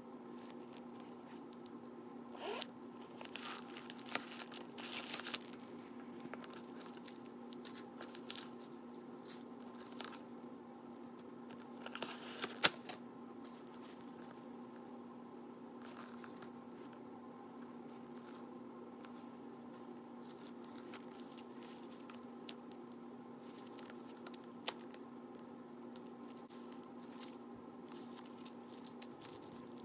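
Handling of a leather crossbody bag: rustling and scraping, a zipper being pulled open, and several sharp clicks, over a steady low hum. Plastic wrapping crinkles near the end.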